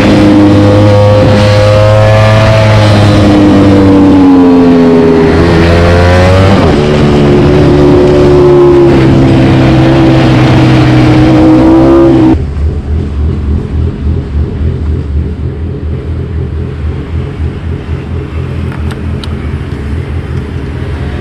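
Ducati Panigale V4 engine through an Akrapovic GP exhaust, running under way with its note rising and falling as the throttle opens and closes and the gears change. About twelve seconds in, the sound cuts off suddenly to a lower, uneven idle from the bike standing still.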